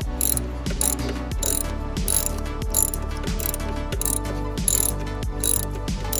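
Ratchet wrench clicking in repeated strokes as a new spark plug is tightened down, with background music.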